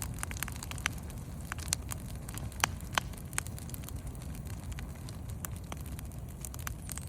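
Storm wind blowing in steady low rumbling gusts, with many scattered sharp clicks and crackles throughout.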